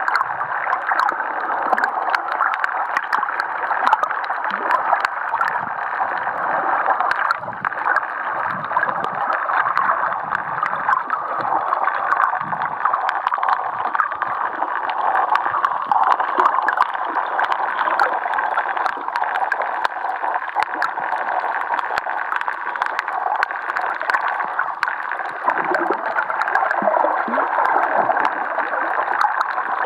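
Underwater sound on a coral reef: a steady muffled water rush with frequent small clicks and crackles, and low gurgles now and then.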